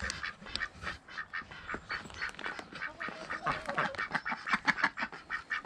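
A small backyard flock of domestic ducks quacking among laying hens: many short, overlapping calls.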